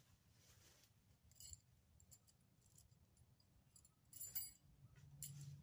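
Near silence with a few faint clicks and rustles, the loudest cluster about four seconds in.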